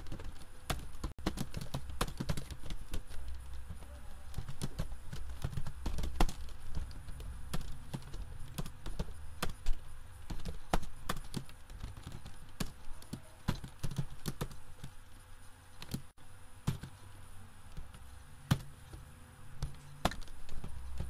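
Computer keyboard keys clicking in irregular runs of typing, over a low steady hum.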